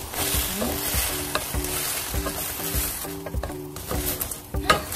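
Fried chicken wings being stirred and tossed in kkanpunggi sauce in a hot pan, the sauce sizzling steadily. A utensil clicks against the pan a few times.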